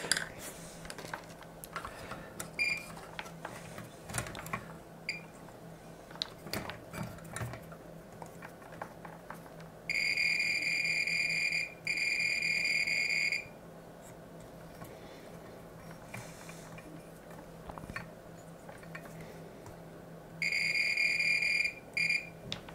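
Multimeter continuity beeper sounding a steady high beep in two pairs, with small taps of the test probes on the circuit board in between. The probes are across the power supply's output protection diode, once each way round, and the beep shows a short: the diode, which the repairer thinks was destroyed by reverse current from a battery connected backwards.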